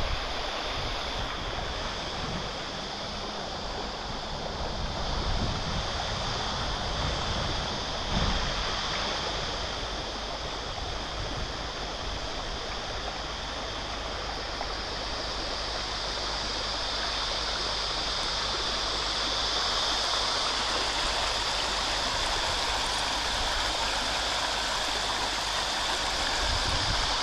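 Shallow river water running over a rocky riffle: a steady rushing hiss of flowing water, slightly louder in the last few seconds.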